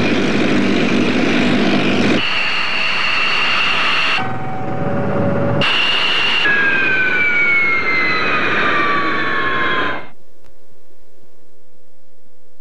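Clips of loud jet and military engine noise cut together abruptly, then from about six seconds in a jet engine whine falling steadily in pitch. It cuts off suddenly at about ten seconds, leaving a steady low electrical hum.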